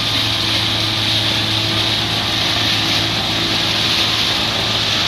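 Motorboat engine running steadily under way: a constant low hum with a steady hiss over it.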